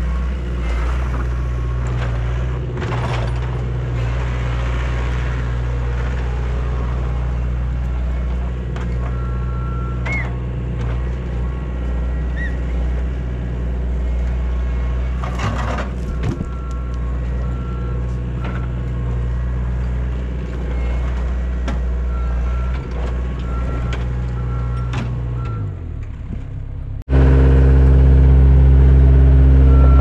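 Skid steer loader's engine running steadily under load while breaking out concrete, with occasional clanks of the attachment and concrete, and a backup alarm beeping on and off. About 27 s in the engine sound jumps suddenly louder and steadier.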